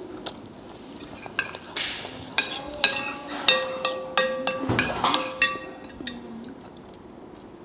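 A cut-glass serving bowl clinking about ten times as fingers pick noodles out of it, each clink ringing briefly.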